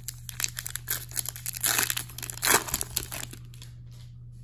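Hockey card pack wrapper being torn open and crumpled by hand: a run of crinkles and crackles, densest about two seconds in, that stops a little after three seconds.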